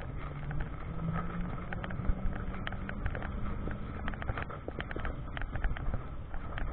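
Carver electric tilting three-wheeler on the move: the electric drive's whine rises steadily in pitch for about four seconds as it gathers speed, then fades, over road noise and frequent irregular clicks and rattles.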